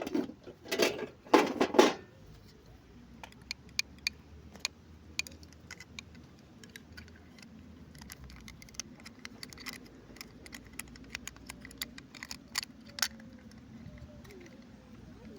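Small plastic toy pieces and packaging being handled: a few louder rustles in the first two seconds, then scattered light clicks and taps.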